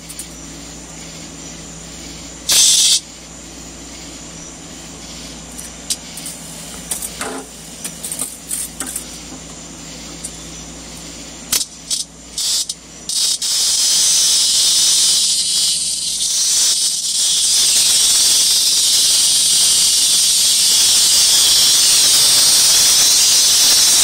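A cicada buzzing loudly as a cat plays with it: a loud burst about two and a half seconds in and several brief rasps after, then from about halfway through a continuous loud, high buzz that keeps on.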